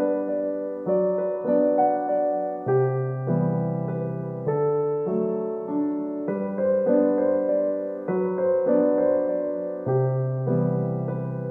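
Background piano music, with notes struck and left to ring and changing roughly every half second to second.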